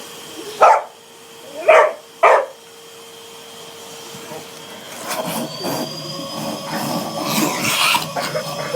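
A dog barks three short times, over the faint hum of a running vacuum cleaner; about five seconds in, the hoover's whine grows louder, with more of the dog's barks and noises mixed in.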